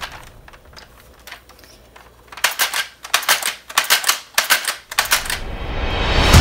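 Sharp clicking and clacking of hard plastic parts as a Nerf Zombie Strike blaster is handled: a quick, irregular run of clicks that starts about two seconds in and lasts about three seconds.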